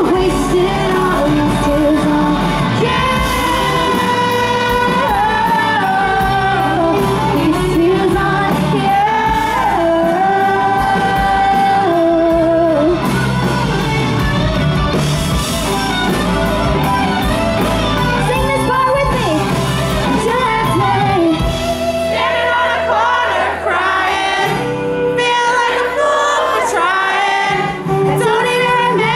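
Live country-pop band performance: a woman sings the lead vocal into a handheld microphone over a full band with electric guitar, loud and continuous.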